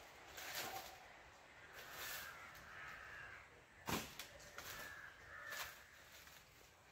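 Crows cawing several times, with a single sharp knock about four seconds in.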